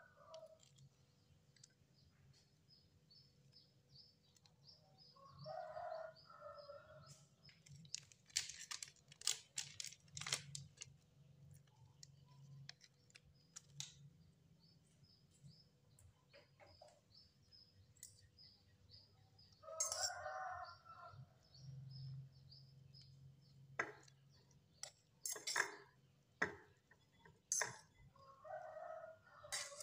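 Chickens calling in the background, three short calls about a second each, near the start, about two-thirds through and near the end. Scattered clicks and taps of kitchenware against a ceramic bowl as sauce and noodles go in.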